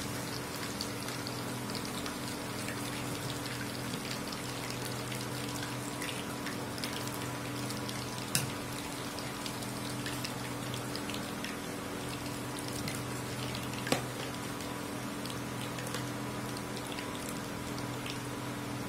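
Battered ivy gourd pieces deep-frying in hot oil in a cast-iron kadai: a steady sizzle with many small crackles, over a faint steady hum. Two sharp clicks, about eight seconds in and again some six seconds later, as the wire skimmer knocks the pan.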